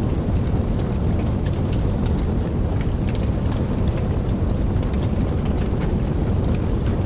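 Campfire burning: a steady low rumble of flames with frequent small sharp crackles and pops scattered throughout.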